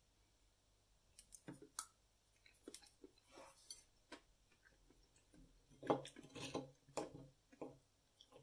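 Faint, scattered clicks and short scrapes of cutlery on a plate and bone while bone marrow is scooped out to eat, busiest a little after the middle.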